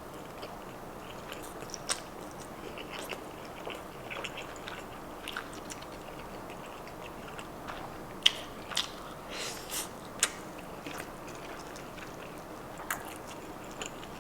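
A person eating close to the microphone: chewing and biting, with scattered short mouth clicks and smacks. These are loudest and most frequent about eight to ten seconds in.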